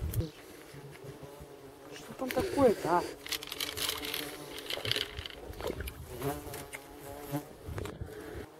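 Flying insects buzzing close to the microphone. The pitch swoops up and down as one passes about two to three seconds in.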